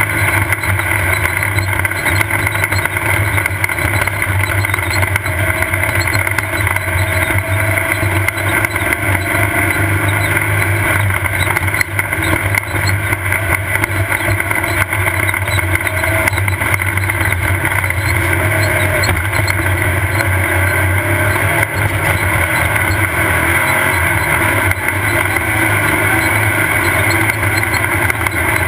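Off-road desert race car's engine running at a steady pitch, heard from on board while driving, with constant ride noise over it.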